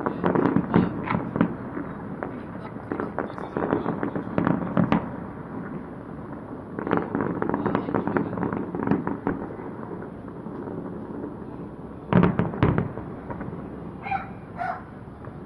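Aerial fireworks bursting in rapid clusters of sharp bangs and crackles, with short lulls between salvos and a loud salvo about twelve seconds in.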